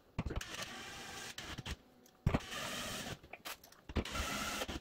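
Cordless drill driving a screw through a steel mounting bracket into a plastic wall anchor, run in three short bursts of whirring with a few knocks from the bit and screw near the start.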